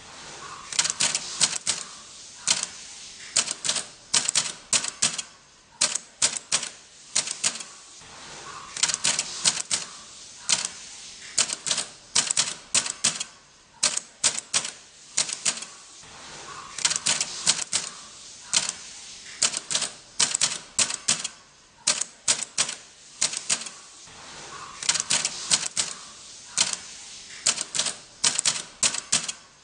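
Keys of a vintage manual typewriter clacking in quick runs of keystrokes, with short pauses every few seconds.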